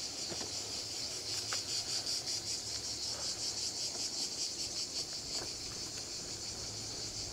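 A dense chorus of insects chirring steadily: a high, rapidly pulsing drone, with a few faint ticks beneath it.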